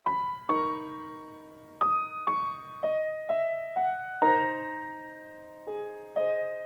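Music: a slow piano melody of about ten single notes and chords, each struck and left to ring and fade.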